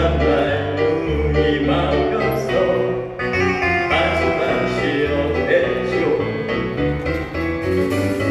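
Instrumental accompaniment to a ballad, with steady held bass notes under a melody line, ahead of the vocal entry.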